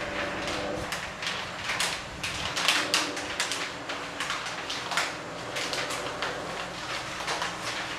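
Newspaper rustling and flapping in the airflow of an electric desk fan, in quick irregular crackles, over the fan's steady hum.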